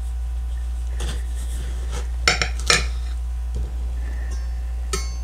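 A sharp kitchen knife slicing through a melon, its blade clicking against a ceramic plate a few times, with two close together about two and a half seconds in. A steady low hum runs underneath.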